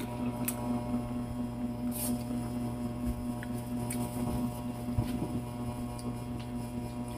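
A steady electrical mains hum runs underneath. Over it come a few soft clicks and smacks of a person chewing ripe pineapple.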